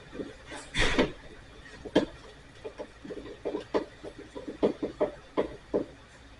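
Irregular knocks and clicks of hard tools and electrical parts being handled during outlet installation work, with a louder clatter about a second in.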